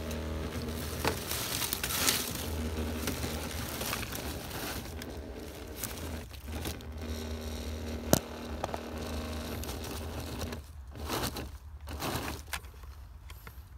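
Small electric RC crawler truck (a TRX-4 clone) crawling over dry leaves and twigs: its motor and gears whine in stretches while the leaves crunch and crackle under the tyres, with one sharp click about eight seconds in.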